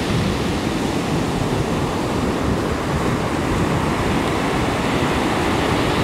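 Small waves breaking and washing up on a sandy beach: a steady surf.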